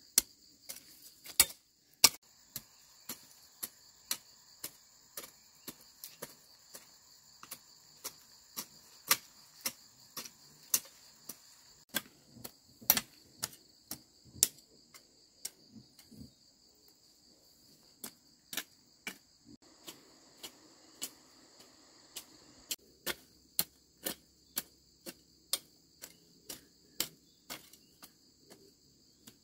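Garden hoe chopping into the soil between vegetable plants, sharp strikes repeating roughly one to two a second, over a steady high buzz of insects.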